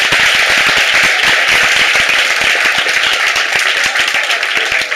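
Audience applauding with dense, loud clapping that eases slightly near the end.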